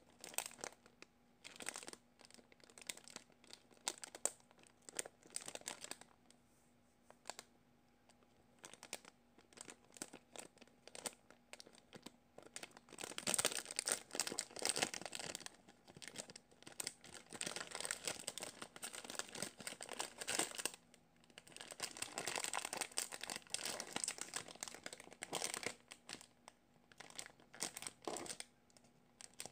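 Thin clear plastic packaging bag crinkling and rustling in the hands as a squishy toy is unwrapped. Scattered crackles become a dense, louder rustle about halfway through and again shortly after.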